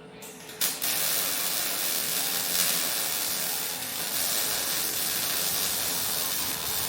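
MIG welding arc struck about half a second in with a sharp start, then running as a steady, even hiss while a bead is laid.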